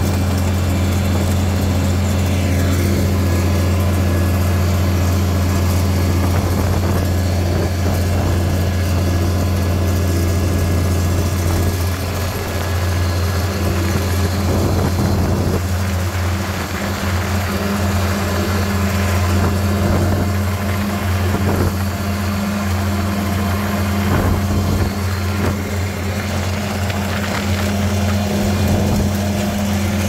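Farmall 656 tractor engine running at a steady speed, a low, even drone.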